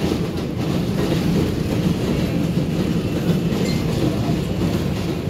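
Steady running noise of an R142A subway car in motion, heard from inside the car: wheels on rail and the car's running gear, with a few faint clicks.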